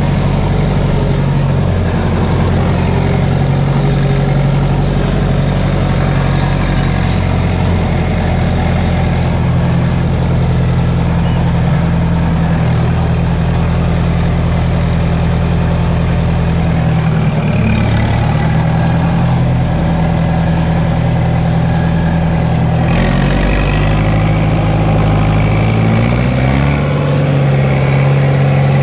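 Fiat 70-66 tractor's four-cylinder diesel engine running steadily under way, heard from inside the cab. The engine note dips a couple of times past the middle, then climbs back up near the end.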